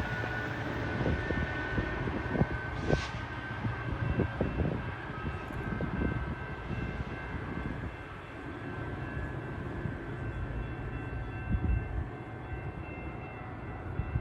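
GO Transit passenger train running on the rails: a steady low rumble with irregular knocks from the wheels, with a faint steady high tone over it, easing slightly about halfway through.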